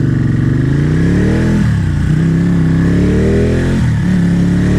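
V-twin sport motorcycle accelerating hard through the gears. The engine note climbs, drops sharply at an upshift about a second and a half in, climbs again and drops at a second upshift near the end.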